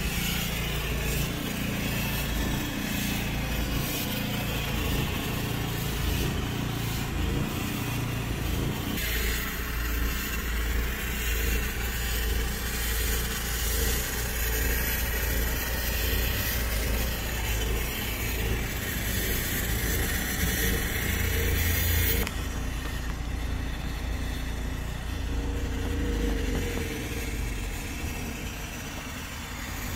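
Optima steam cleaner running during interior detailing: a steady low motor rumble under a hiss. The sound shifts abruptly about nine seconds in and again around 22 seconds.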